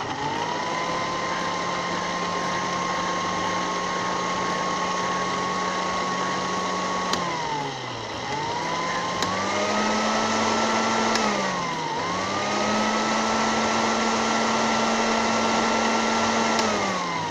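Electric countertop blender running, puréeing roasted eggplant with yogurt into a smooth dip. Its motor whine is steady, winds down about seven and a half seconds in and spins back up, dips briefly again about twelve seconds in, and winds down near the end.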